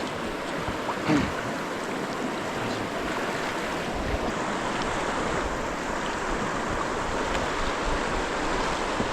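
Steady rushing of a river's moving current. About a second in there is one short, slightly louder sound.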